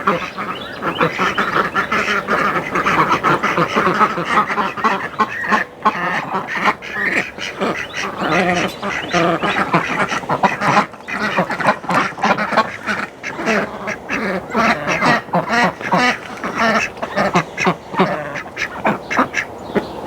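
A flock of domestic ducks quacking continuously, many calls overlapping.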